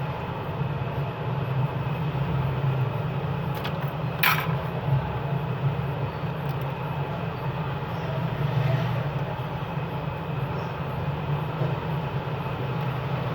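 A steady low mechanical hum over a background of noise, with one short sharp click about four seconds in.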